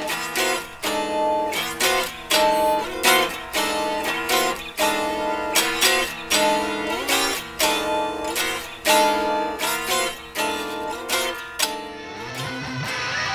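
Electric guitar strummed in repeated chord stabs, about every two-thirds of a second, some sliding in pitch. Near the end the stabs stop and give way to a held, droning chord.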